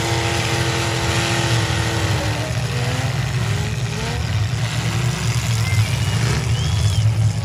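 Demolition derby car engines revving hard over a constant low engine rumble, one held at a steady high pitch that sags and drops off about two and a half seconds in. Scattered calls from spectators follow.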